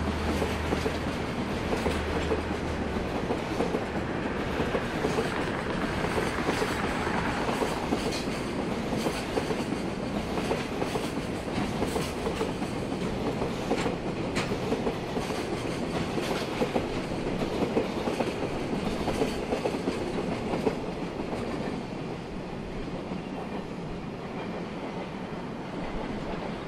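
JR Freight Koki container flat wagons rolling past on the rails, wheels clicking repeatedly over rail joints. The sound drops in level near the end as the last wagons move away.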